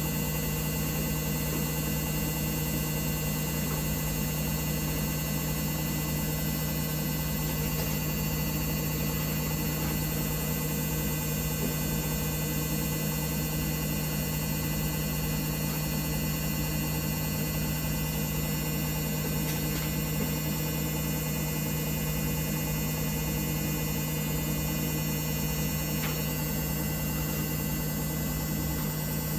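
Samsung WF1700WRW front-loading washing machine running steadily, an even motor hum with a strong low tone that holds unchanged throughout.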